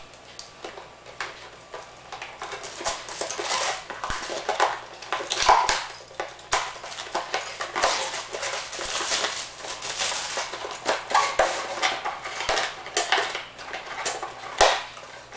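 Plastic shrink wrap crinkling and tearing as it is pulled off a cardboard box, with irregular crackles and sharp taps of the box being handled and set down on a hard floor.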